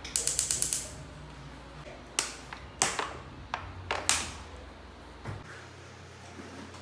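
Cookware being handled at the stove: a quick rattle of about eight sharp clicks near the start, then four separate knocks and clinks over the next few seconds.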